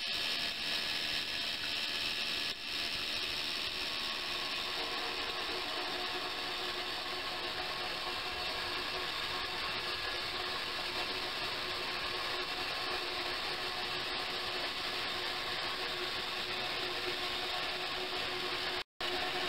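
Water running steadily from a small ultrasonic tray over a stainless steel bowl into a larger stainless ultrasonic tank, with the ultrasonic cleaners running. The result is a continuous even hiss with a faint steady buzz and hum.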